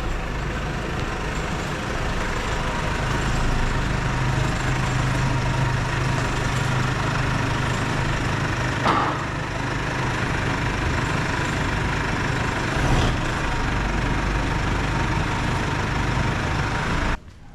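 Two-post vehicle lift's electric hydraulic power unit running steadily as it raises the lift, with a couple of brief clicks partway through. It cuts off suddenly near the end.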